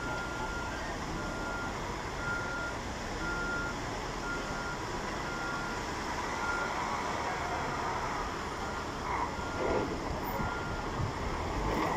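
A vehicle's reversing alarm beeps about once a second over steady traffic and engine noise, stops for a couple of seconds, then starts again.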